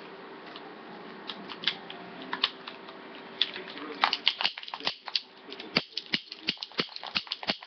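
Toy cap gun clicking: a few scattered clicks, then from about four seconds in a quick run of sharp clicks, about five a second, as the trigger and cylinder are worked over and over.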